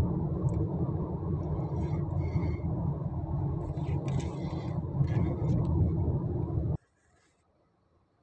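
Steady low rumble of a car's engine and tyres heard from inside the cabin while driving. It cuts off abruptly near the end, leaving near silence.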